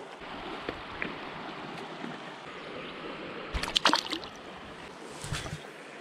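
Shallow river flowing over stones, a steady rush of water, with a short burst of sharp splashing and rustling a little past the middle as a redbreast sunfish is released back into the water.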